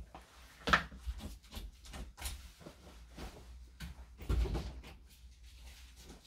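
Household clicks and thumps as a person gets up from an office chair and opens a door. There is one sharp click about a second in, scattered knocks after it, and a cluster of low thuds past the four-second mark.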